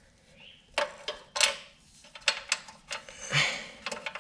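Small metal parts being handled: a series of sharp clicks and knocks with a short scrape, as a bolt is fitted through a kill-switch mounting bracket.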